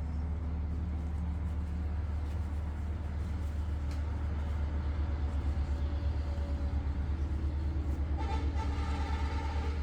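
A steady low mechanical hum, engine-like, that starts pulsing evenly about halfway through; a higher tonal sound joins near the end.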